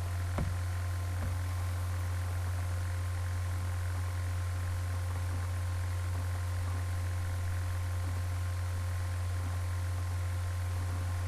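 A steady, unchanging low hum with an even hiss and faint steady higher tones above it, and a faint click about half a second in.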